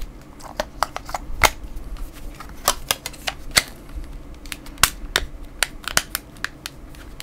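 Irregular plastic clicks and snaps from a Samsung Galaxy S II being handled for a battery pull, its back cover and battery being taken out and fitted back.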